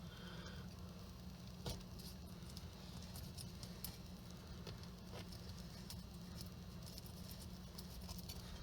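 Faint scattered clicks and scrapes of a fillet knife cutting along the backbone of a small bluegill, over a steady low hum.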